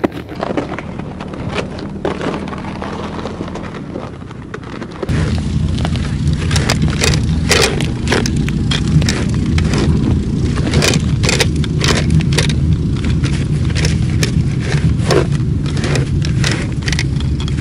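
A hand-cranked ice auger being turned into very thick ice: a steady grinding rumble with frequent crunching clicks as the blades bite and chips break away. It starts about five seconds in, after a stretch of quieter shuffling over snow.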